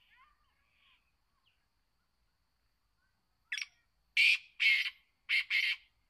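Male black francolin calling: a short note about three and a half seconds in, then four loud rasping notes in two pairs.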